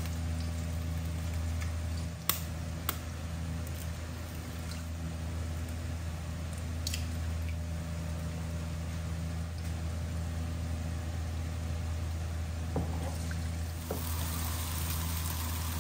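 Eggs frying in hot oil in a wok, a steady sizzle, with a few sharp cracks of eggshells in the first several seconds. Near the end a wooden spatula stirs and scrapes the eggs as they are scrambled. A low steady hum runs underneath.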